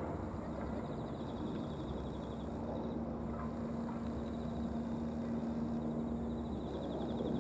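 Outdoor background noise: a steady low hum with a faint, rapid, high-pitched chirring that comes and goes.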